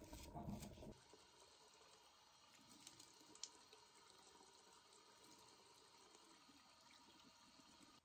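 Faint steady running of a bathroom tap into the sink, louder in the first second, with a couple of light clicks about three seconds in; it cuts off suddenly at the end.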